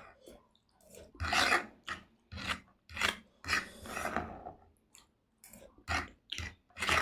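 Close-miked eating noises: a string of short, noisy mouth sounds at irregular intervals as food is chewed and slurped.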